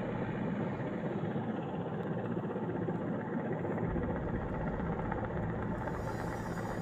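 Steady low drone of an engine, with a hum of several low tones under an even rushing noise.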